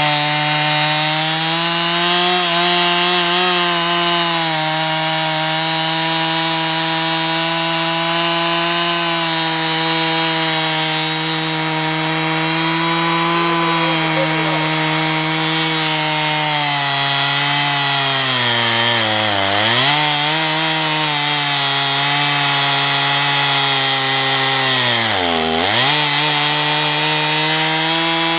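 Two-stroke chainsaw on a guide-bar chainsaw mill ripping lengthwise through a log, engine held at steady high revs under load. Twice near the end the pitch sags briefly as the engine bogs in the cut, then picks back up.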